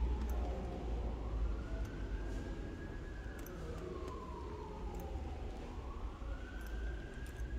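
Emergency-vehicle siren sounding a slow wail that rises and falls, peaking twice, over a steady low rumble.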